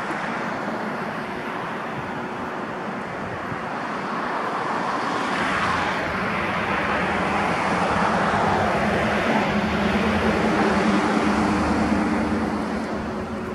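Engine noise of a passing vehicle: a steady rush with a low hum that grows louder over several seconds, peaks, then fades near the end.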